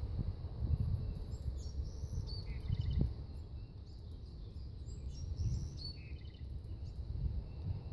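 Songbird singing short phrases of quick, high, repeated notes, about two and a half seconds in and again near six seconds; the uploader wonders whether it is a Bewick's wren. A low rumble runs underneath.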